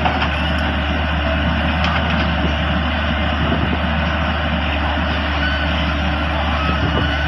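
Volvo EW180 wheeled excavator's diesel engine running steadily under working load as the boom and bucket dig into a ditch bank.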